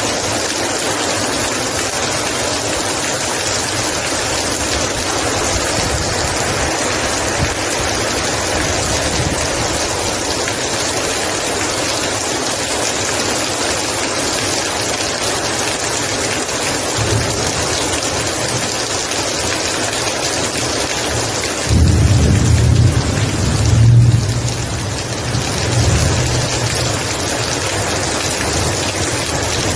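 Heavy rain falling steadily, a dense even hiss of drops on surfaces. About two-thirds of the way through, a deep low rumble swells for several seconds and then fades.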